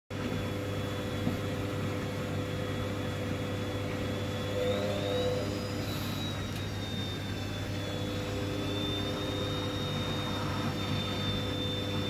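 Hoover front-loading washing machine with its drum turning wet laundry: the motor runs with a steady hum and a high whine that rises briefly about four and a half seconds in, then settles.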